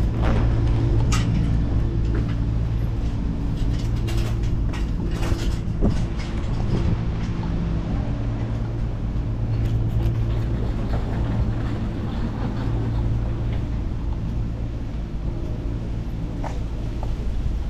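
Steady low, pitched hum of an engine or machine running, with a few scattered sharp clicks and knocks, most of them about four to six seconds in.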